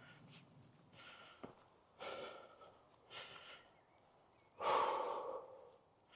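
A man breathing hard from exertion while hiking under a heavy backpack, with a string of heavy breaths about a second apart, the loudest near the end.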